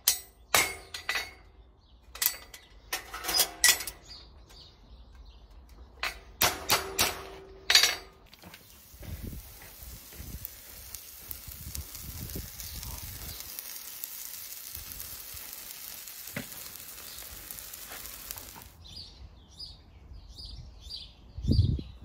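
Steel horseshoe being hammered on an anvil: several quick runs of hammer blows, each ringing. About eight seconds in, the hot shoe is pressed onto the horse's hoof and the horn sizzles and hisses steadily for about ten seconds, stopping abruptly. After it, small birds chirp, with a single low thump shortly before the end.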